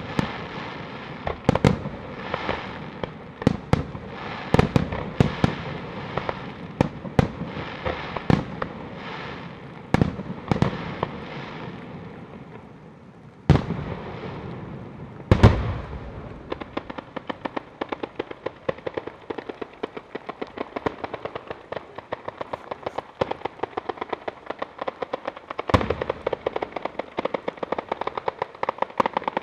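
Daytime Italian firecracker battery going off: loud separate bangs over a crackling haze, then two big booms and a fast, unbroken rattle of firecrackers exploding in quick succession.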